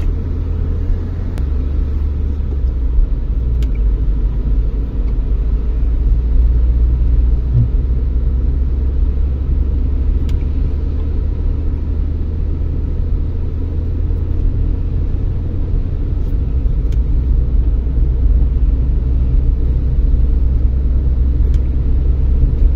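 Steady low rumble of a car driving on a wet road, heard from inside the cabin: engine and tyre noise, with a few faint ticks.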